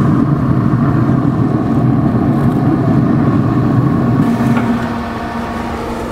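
Wood-pellet smoker running, a steady low hum from its fan with a faint steady tone through it, easing a little about four seconds in.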